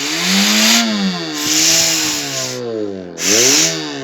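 Homemade car engine sound generator playing through loudspeakers: the engine note revs up and falls back about three times, and each rise brings a burst of turbo-like hiss.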